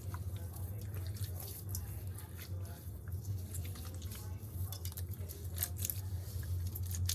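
Raw octopus being rubbed and squeezed with salt by hand: irregular wet squelches and sticky clicks, over a steady low hum.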